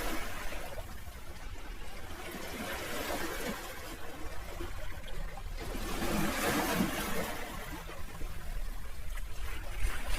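Sea waves washing on a shore, the surf swelling and falling away in waves a few seconds apart.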